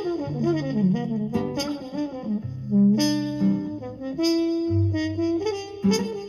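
Instrumental break of a Mexican ranchera song: a lead melody line with a quick falling run in the first second, over sustained bass notes.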